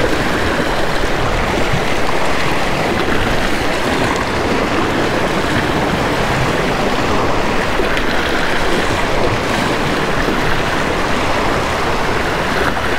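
Small waves washing and foaming over the jetty's rocks at the waterline, a steady rushing of surf.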